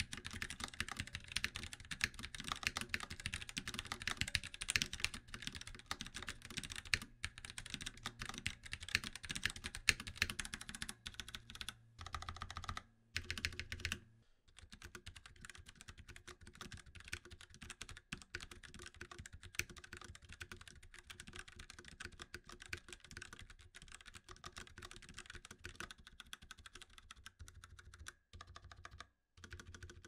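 Typing on a Razer BlackWidow Lite tenkeyless keyboard with Razer Orange tactile, non-clicky switches: a fast patter of keystrokes bottoming out. After a short pause about halfway through, the typing goes on noticeably quieter, with rubber O-rings fitted on the keys to dampen the bottoming out.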